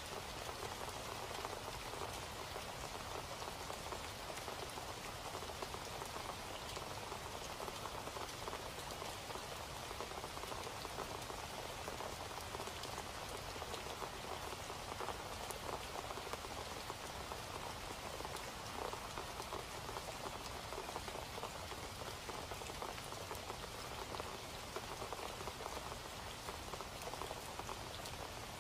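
Steady rain falling, a dense even hiss of many small drop ticks that does not change.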